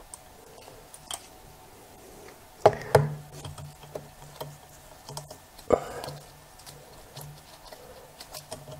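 Small scattered clicks and taps of metal tweezers handling tiny screws at a camera lens's metal mount, with two louder knocks about three and six seconds in.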